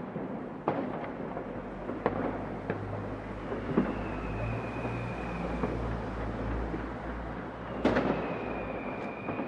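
New Year's Eve fireworks over a city: a continuous rumble of many distant bangs, with a few sharp, closer cracks, the loudest near the end. A long, faint whistle that falls slightly in pitch is heard twice, like whistling rockets.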